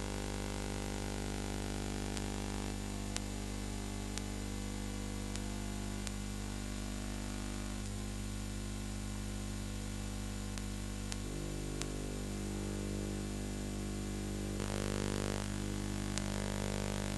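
Steady hum and hiss with scattered faint clicks: background noise on the transfer of a silent film, with no sound of its own.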